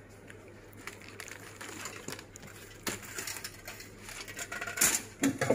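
Aluminium foil crinkling and raw chicken skin squishing as hands rub seasoning into a whole raw chicken, in irregular crackles that grow louder near the end.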